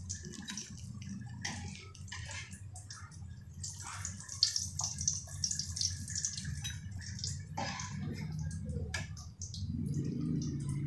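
Hot cooking oil sizzling and crackling around samosas deep-frying in a kadhai, a hiss full of quick pops, over a steady low hum.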